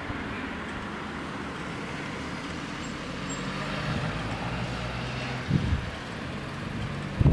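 Steady low rumble of road traffic and a running engine, with two short low thumps of wind buffeting the microphone near the end.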